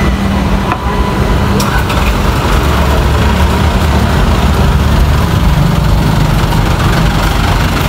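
Engine running steadily at idle, a low continuous rumble.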